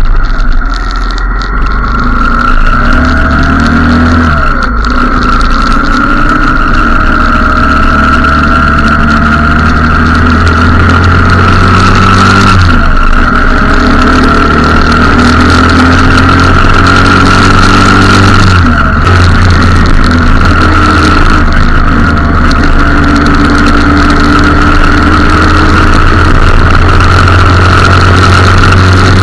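Motorcycle engine accelerating on the road, its pitch climbing and dropping at each upshift: about 5, 13 and 19 seconds in. After the last shift it settles into steady cruising.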